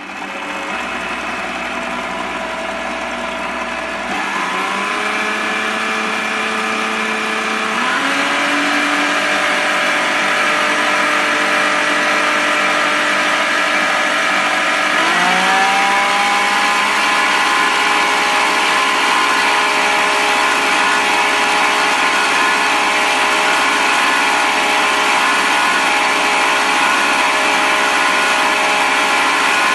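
Electric stand mixer running, its beater whisking eggs, sugar and condensed milk in a stainless steel bowl. The motor's whine rises in pitch in three steps, about four, eight and fifteen seconds in, as it speeds up.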